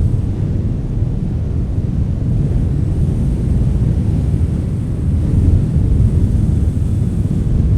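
Wind blowing steadily, a deep rushing noise that swells a little about five seconds in.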